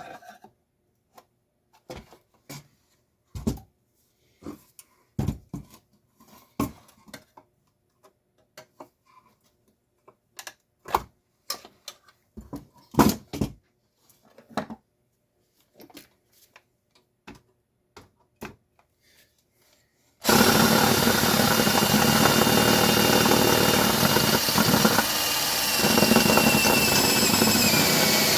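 Scattered clicks and knocks of metal parts being handled. Then, about 20 seconds in, a power drill runs steadily for about eight seconds, drilling out a rivet in a garage door opener's riveted housing, with a high whine that sags slightly toward the end.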